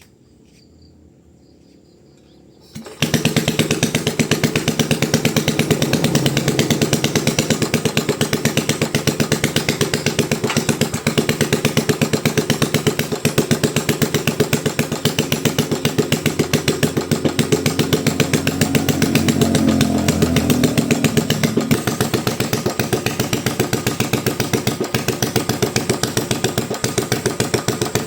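Honda G300 single-cylinder engine, converted to overhead valves with a Honda GX270 head, starting about three seconds in and then running with an even, rapid firing beat. It picks up speed briefly about two-thirds of the way through and settles back.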